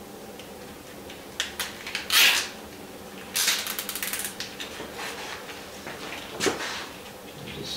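Nylon zip ties being pulled tight around bundled e-bike wiring: a short loud rasp, then a rapid ratcheting zip lasting about a second a little before the middle, among light clicks and rustles of the cables being handled.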